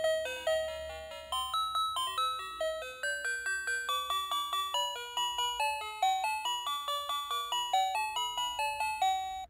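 Battery-powered dancing robot toy playing its built-in electronic tune: a quick melody of chiming, bell-like notes, about four a second, which cuts off suddenly at the end.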